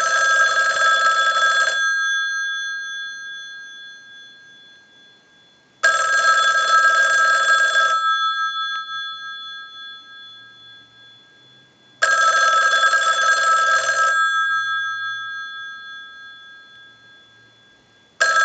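Western Electric 554 rotary wall telephone's bells ringing to an incoming ring cycle: about two seconds of rapid ringing, then the gongs sounding on and fading away. The cycle comes three times, and a fourth ring starts near the end. The phone is ringing in properly.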